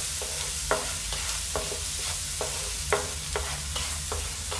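Wooden spatula stirring a thick onion-tomato masala paste frying in oil in a non-stick pan, scraping across the pan in short strokes about twice a second over a steady background hiss.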